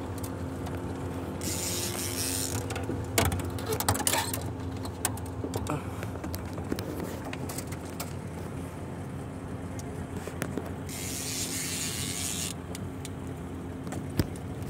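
Fishing reel working under the load of a hooked tambaqui: clicks from the reel mechanism as line is cranked in, and two bursts of hissing drag as the fish pulls line out, about two seconds in and again near eleven seconds. A steady low hum runs underneath.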